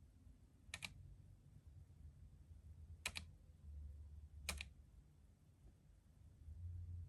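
Three single key presses on a GK Gamakay TK75 V2 silent mechanical keyboard, each a short sharp click, spaced a second or two apart over a faint low hum.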